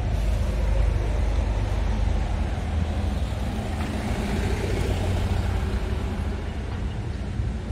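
Scania R500 truck's diesel engine idling steadily.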